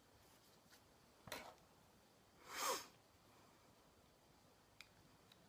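Near silence with a few faint metal clicks of a lock pick and tension wrench going into a pin-tumbler lock cylinder, and one short sniff through the nose about halfway through, the loudest sound.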